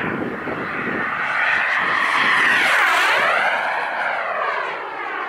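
Radio-controlled model airplane's engine during a fly-by. It swells to its loudest about halfway through as the plane passes, then fades away.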